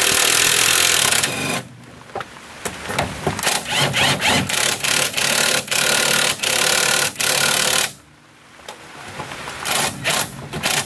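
Ryobi impact wrench running on an outer tie rod end nut in bursts: a long run at the start and another in the middle, with many short trigger blips between and near the end. The nut is being stubborn and does not come off.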